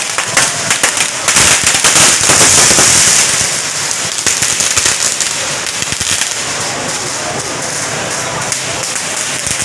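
Strings of firecrackers going off in a dense, rapid crackle, loudest in the first few seconds, then thinning out to scattered pops over a steady noise.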